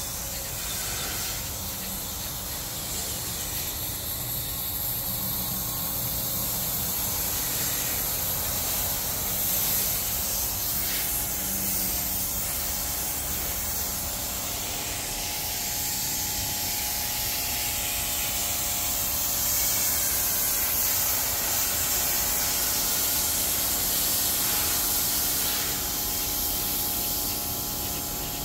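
Pressure washer spraying water onto a house's eave and siding: a steady hiss of the jet over the even hum of the machine's motor and pump.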